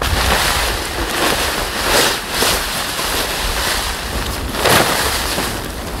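Large nylon tarp rustling and flapping as it is pulled out and shaken open, with louder swells about two seconds in and again near five seconds.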